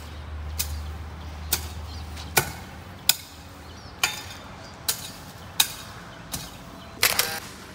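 A hand tool chopping into weedy ground, clearing lalang grass: sharp strikes roughly once a second, about nine in all, with a quick double strike near the end.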